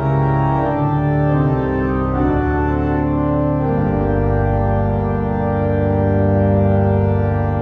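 Church organ playing a slow hymn tune in full sustained chords, the harmony moving every second or so and then settling on one long held chord from about halfway.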